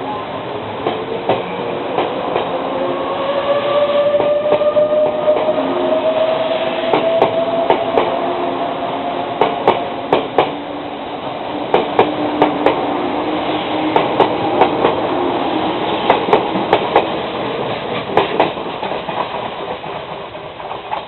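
Izukyu 2100 series electric train pulling out and picking up speed: its motor whine rises steadily in pitch, then the wheels clatter over rail joints in repeated clusters of clicks.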